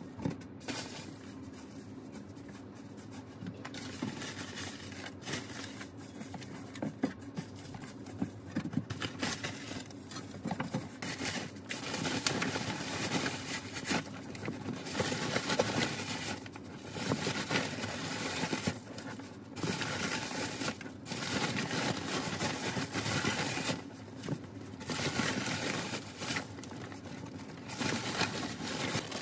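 Aspen wood-shaving bedding poured into a hamster cage over a layer of hay, a dry rustling pour that comes in a series of stretches of a couple of seconds each. Before that, quieter rustling of hay and bedding being handled.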